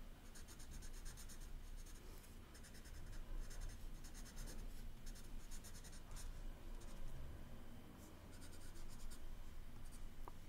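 Multicolour-lead coloured pencil scratching on sketchbook paper in quick back-and-forth shading strokes. It comes in several short runs with brief pauses between them.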